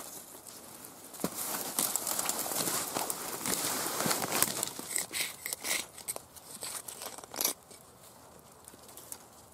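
Dry black raspberry canes rustling and crackling as a cane is cut at its base and dragged out through the tangle of stems, with a run of sharp cracks in the second half and the loudest one near the end.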